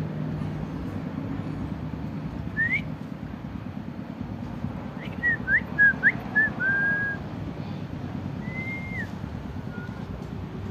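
Short whistled notes over a steady background noise: a single rising note, then a quick run of short chirpy notes ending in a longer one, and later a held note that drops at its end.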